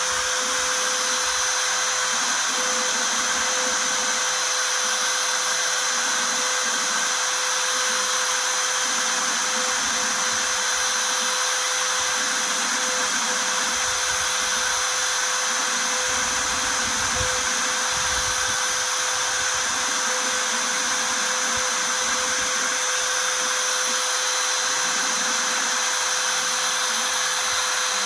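CNC router spindle running steadily with a high whine while a 1/4-inch V-bit engraves lettering into aluminium sheet, over a wide cutting hiss. A lower hum comes and goes every second or so as the machine moves the bit along the letters.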